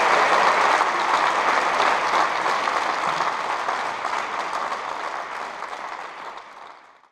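Audience applauding, a dense steady clapping that fades out smoothly to silence near the end.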